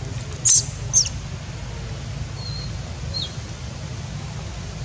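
Two short, high-pitched animal squeaks with falling pitch, about half a second apart, then two faint short chirps, over a steady low hum.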